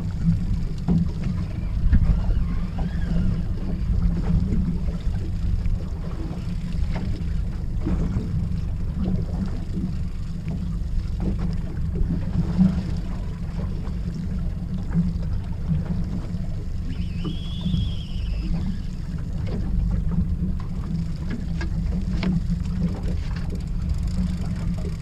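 Steady low rumble aboard a small boat at sea, wind buffeting the microphone, with scattered light knocks.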